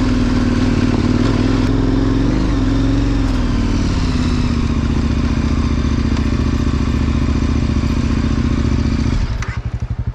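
KTM 1090 Adventure's V-twin engine running under way, its note wavering slightly with the throttle, then falling to a slow, loping beat near the end as the throttle is closed.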